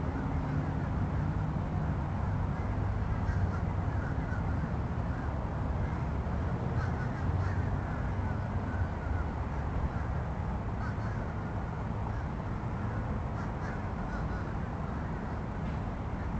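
Birds calling now and then over a steady low rumble.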